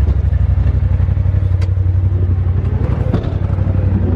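A Polaris RZR Turbo side-by-side's engine running steadily, a strong low rumble heard from the cab, with a couple of light knocks of rattle over it.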